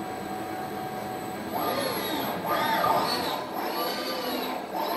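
Servo motors and gearboxes of a Fanuc M-900iA industrial robot arm whining as the arm moves, over a steady hum. From about a second and a half in, the whine rises and falls in pitch several times as the axes speed up and slow down.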